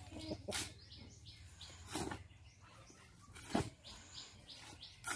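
Shovel scraping into a pile of dry sand and cement and tipping each scoop back on, four strokes about a second and a half apart, with birds chirping faintly.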